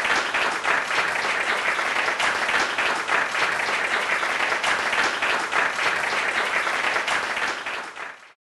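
Audience applauding steadily, the clapping fading away and cutting off about eight seconds in.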